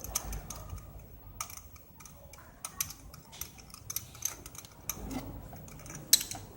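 Scattered clicks and light metallic clinks of hand tools at work on the engine's spark plugs, with a sharper click near the end.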